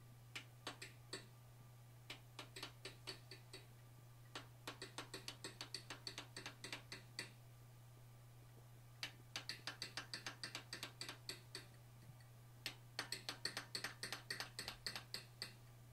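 Light, quick hammer taps on a handheld punch set against a forged steel bear's head on an anvil, in five runs of about five strikes a second with short pauses between. A steady low hum lies underneath.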